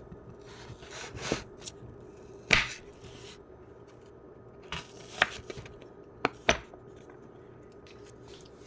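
Knife cutting an apple: a handful of separate sharp knocks and cuts, the loudest about two and a half seconds in and a quick pair near the end.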